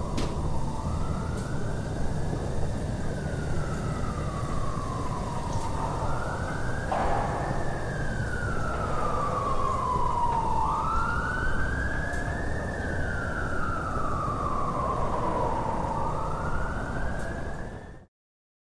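A wailing siren whose pitch climbs for about two seconds and then sinks slowly, over and over, above a low rumble. It cuts off suddenly near the end.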